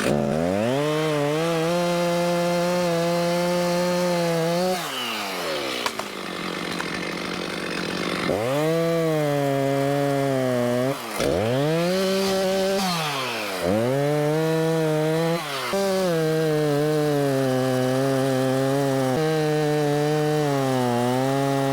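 Two-stroke chainsaw cutting into a tree trunk: revved up and held at full throttle through the cut, easing back about five seconds in, then opened up again with brief throttle drops before running on at full speed to the end.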